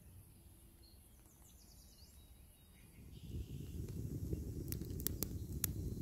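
Faint bird chirps over near quiet. About halfway in, a campfire of dry sticks comes in as a steady low rush with sharp crackles and pops.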